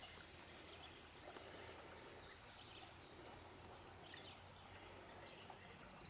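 Near silence: faint outdoor background hiss with a few distant bird chirps.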